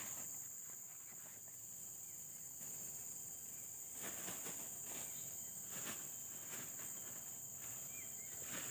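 Steady, high-pitched chorus of insects in the waterside vegetation. A few faint short rustles or knocks come through it from about four seconds on.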